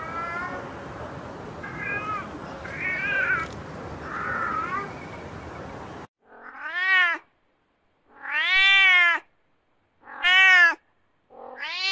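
Domestic cat meowing. First come a few short, faint meows over a steady background hiss. From about six seconds in, three loud, long meows follow, each rising and then falling in pitch, and a fourth begins near the end.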